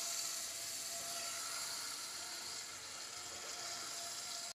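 Potato chunks and tomato masala sizzling in a kadhai, a steady soft hiss, while a wooden spatula stirs them. The sound cuts off suddenly at the very end.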